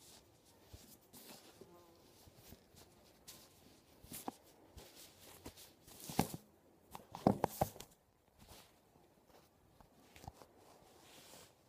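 Handling noise on a phone's microphone: fingers and a fuzzy blanket rubbing and tapping against it, with a few louder knocks about six seconds in and again a second later.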